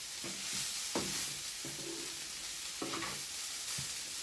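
Vegan soya-protein mince sizzling in a frying pan as it is stirred with a wooden spatula, the spatula scraping and knocking against the pan now and then. The mince is being browned with its seasoning mixed through.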